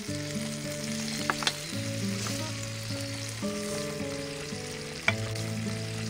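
Food sizzling and frying in a small skillet on a camping gas burner, a steady hiss. A few sharp clicks, one about a second in and one near the end.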